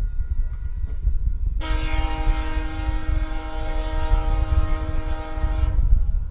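Air horn of a VIA Rail F40PH-2D diesel locomotive, heard from a distance, sounding one long chord blast of about four seconds starting a couple of seconds in, over a steady low rumble. It is a drawn-out crossing warning as the train pulls away toward a road crossing.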